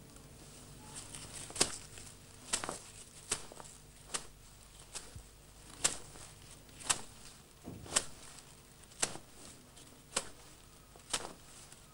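Slow footsteps on sandy, stony ground: a row of short, sharp steps, about one a second.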